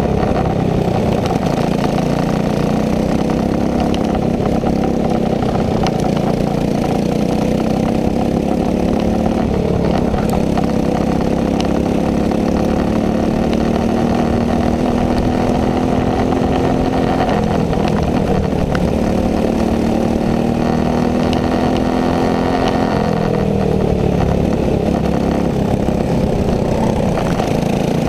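Racing kart engine heard close up, its pitch climbing steadily for several seconds and then dropping sharply, three times over. This is the kart accelerating along the straights and lifting off for the corners.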